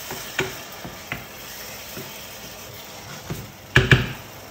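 Tomato sofrito frying gently in a pan while a wooden spoon stirs it, with a few light clicks. Two sharp knocks come near the end.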